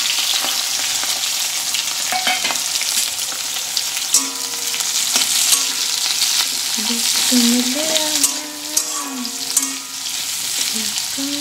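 Freshly added sliced onions sizzling in hot oil in a metal kadai, with a metal spatula scraping and clicking against the pan as they are stirred.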